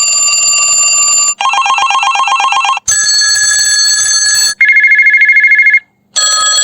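Old-style telephone ringtones played back one after another as short samples, each cut off after about a second and a half. Some are steady rings and some have a fast trill.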